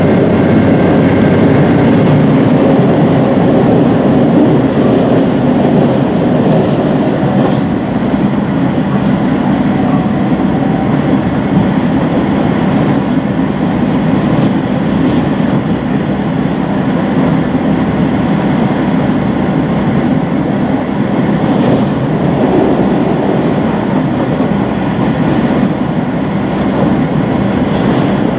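Running noise heard inside the cabin of a HOT7000-series diesel railcar at speed: a steady rumble of wheels on the rails with the underfloor diesel engine humming. The engine hum drops back about seven seconds in, leaving mostly the rolling noise.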